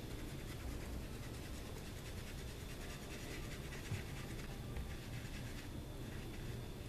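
Rapid scratching strokes of a small stick stirring two-part JB Weld epoxy on cardboard, fading out near the end.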